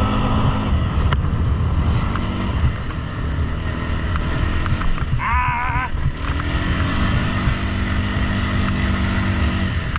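Suzuki Eiger 400 ATV's carbureted single-cylinder engine running under way on the trail, its pitch shifting now and then with the throttle. A brief high-pitched sound comes in about halfway through.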